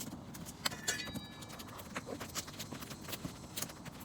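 Water boiling in a camp pot over a small wood fire: faint, irregular popping and ticking.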